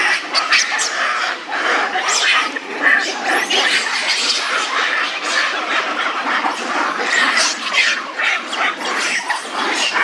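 A troop of macaques calling: many overlapping short screeches and barks in a dense, continuous clamour.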